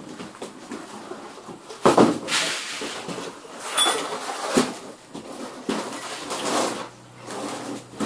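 Clunks and rattles from a partly stripped bicycle frame and loose parts being handled on the floor, with a handful of sharp knocks, the loudest about two seconds in.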